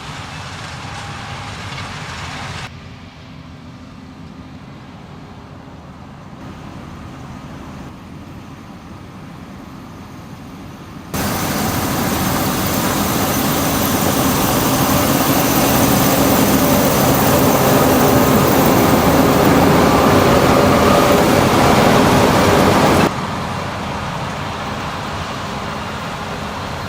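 Harvest machinery running, heard across several abrupt cuts: a moderate machine drone, then a quieter one, then from about eleven seconds a much louder, denser running noise that swells a little before cutting back to a moderate drone near the end.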